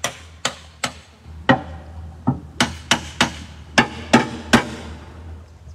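About a dozen hard knocks of someone banging on the boat, unevenly spaced over four and a half seconds, each with a short ring. The loudest come in the middle and near the end.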